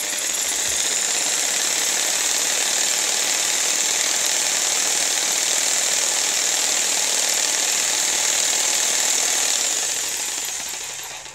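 Jigsaw running steadily as a paint shaker, its reciprocating drive shaking a pot of old miniature paint held where the blade would go. It winds down near the end as it is switched off.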